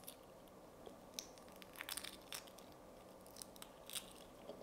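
Soft-boiled egg's shell crackling faintly as it is peeled off by hand, a few scattered small cracks and crinkles with a cluster about two seconds in.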